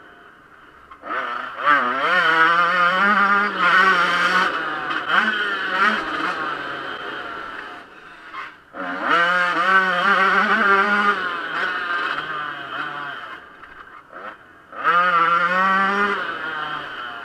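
Yamaha YZ125 single-cylinder two-stroke engine revving hard under full throttle, dropping off and opening up again three times. Its pitch climbs steeply each time and wavers while held high.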